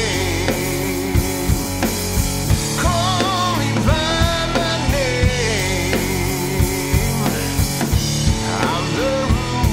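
Blues-rock song: a full drum kit keeps a steady beat under bending, sliding melodic lines.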